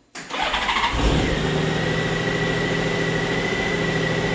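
Honda GL1800 Gold Wing's flat-six engine cranking and catching within about a second, then idling steadily with a steady high whine over it. It starts right up because the tip-over switch is plugged back in, which cures the crank-but-no-start fault of no spark and no fuel pump pressure.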